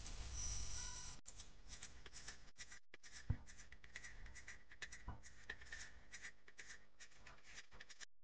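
Faint scattered clicks and rustling, with one soft thump about three seconds in.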